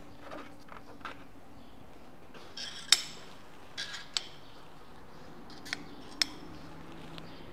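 Metal clinks and taps as a metal measuring plate and spacer sleeves are fitted over a cylinder's head studs on an air-cooled VW engine case: about five sharp clinks, the loudest about three seconds in.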